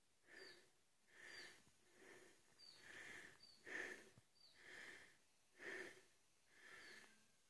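Faint, heavy rhythmic breathing close to the microphone, a soft hissy in-and-out about once a second.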